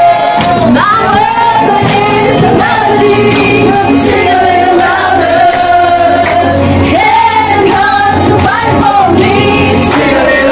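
A group of voices singing a song together over musical accompaniment.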